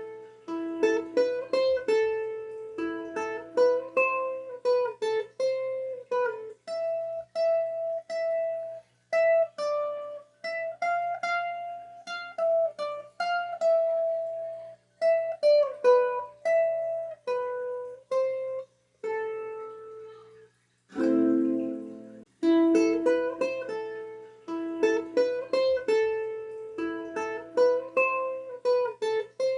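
Background music: a light melody picked on a plucked string instrument such as a ukulele or guitar, note by note, pausing briefly about two-thirds of the way in.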